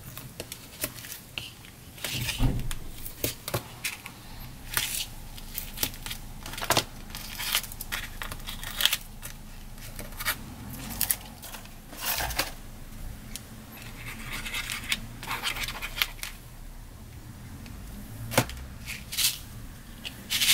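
Card stock and adhesive tape being handled while a shaker element is stuck onto a card: irregular rustles, scrapes and small clicks, with the occasional tearing sound of tape.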